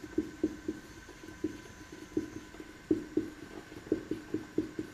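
Marker pen writing on a board: short, irregular strokes, about three a second.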